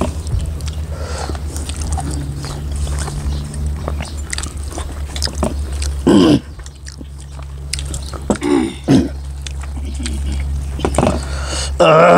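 Close chewing and wet mouth sounds of people eating buffalo curry and rice by hand, over a steady low hum. Short throat or vocal sounds break in about six seconds in, twice around nine seconds, and again near the end.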